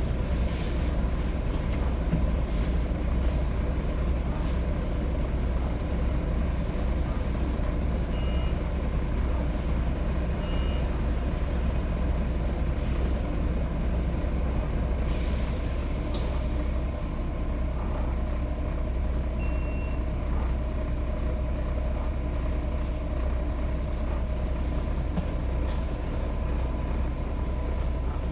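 Volvo B7TL bus's six-cylinder turbodiesel running steadily under way, a deep drone with a thin turbo whistle held over it. A brief hiss of air comes about halfway through.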